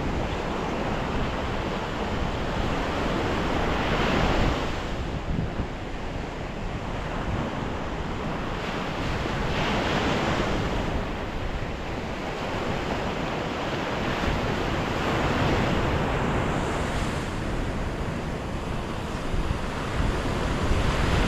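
Gulf surf breaking and washing onto the beach, swelling about every six seconds, with wind buffeting the microphone.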